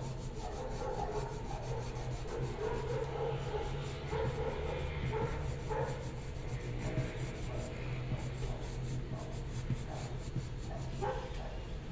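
Coloured pencil scratching and rubbing on drawing paper in repeated shading strokes, over a steady low hum.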